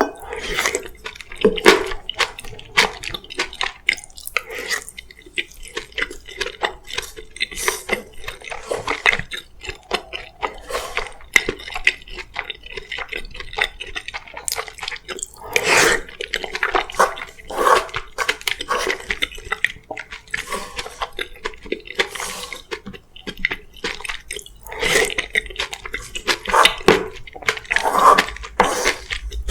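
Close-miked wet chewing and smacking mouth sounds of a person eating, irregular clicks and squelches with no steady rhythm.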